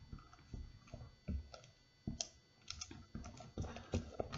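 A mixing utensil stirring a thick mix of school glue, shaving cream and food colouring in a bowl, giving faint, irregular clicks and taps against the bowl.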